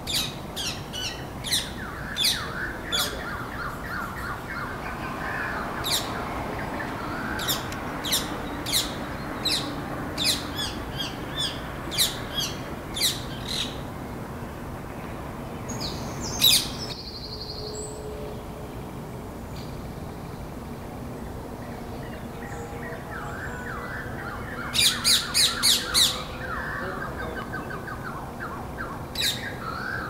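Rose-ringed parakeets giving repeated short, shrill squawking calls, about one or two a second through the first half. Then a lull, a quick run of about five calls roughly three-quarters of the way through, and a few more near the end, over steady low background noise.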